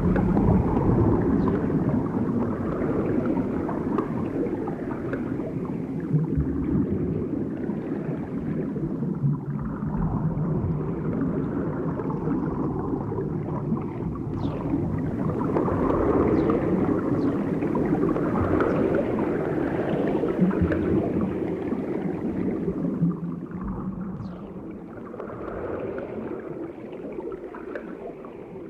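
Movement in water heard from below the surface: a muffled, churning wash of low sound with a few faint high chirps that drop in pitch. It grows quieter near the end.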